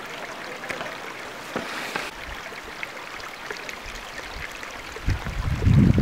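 Steady rush of a small hillside stream and waterfall. Wind starts buffeting the microphone with a low rumble about five seconds in.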